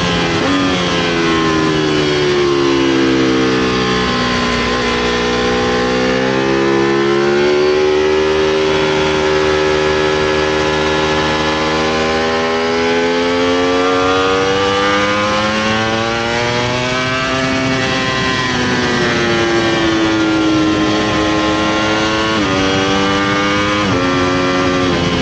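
Ducati Panigale V4 R's V4 engine at track speed: revs fall as the rider brakes and shifts down, then climb steadily as the bike drives out of a corner. Near the end come two quick upshifts, each a sudden drop in pitch.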